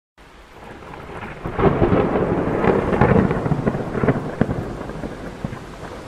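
Thunder over steady rain: a peal that builds from the start, rumbles and crackles loudest from about one and a half to four and a half seconds in, then dies away, leaving the rain.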